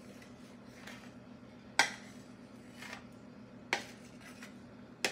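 Short sharp clinks of crockery, four or five of them about a second apart, as sliced raw potatoes are placed by hand into a ceramic baking dish, over a faint steady hum.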